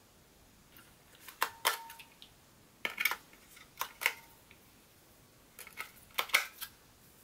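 AA batteries being pushed into the plastic battery compartment of an RC transmitter: a series of sharp clicks and clacks, mostly in quick pairs, as the cells knock against the plastic and snap past the metal spring contacts, a few with a brief metallic ring.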